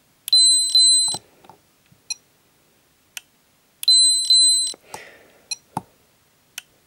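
Peak Atlas ESR70 ESR meter giving its audible alert: a pair of high beeps about half a second in and another pair about three and a half seconds later, as it completes each capacitance and ESR reading. Small sharp clicks come in between.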